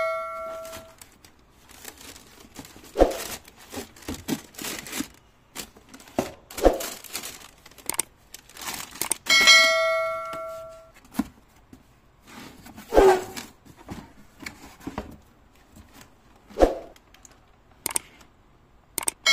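Shoe tissue paper crinkling and a cardboard shoebox being handled, with a few sharp knocks. About halfway through, a bell-like ding chime rings for about a second.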